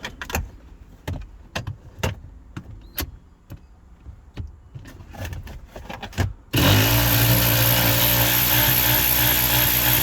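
Scattered clicks and knocks of tools and parts being handled, then about six and a half seconds in a power drill starts and runs at a steady speed, driving a 10 mm bolt out of the gear shifter mount.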